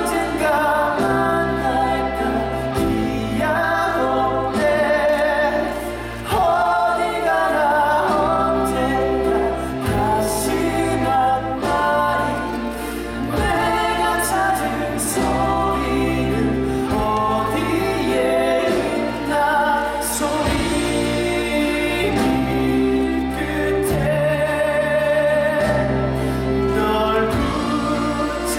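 Stage-musical singing with instrumental accompaniment: a sustained, wavering vocal line over held bass notes that change every couple of seconds.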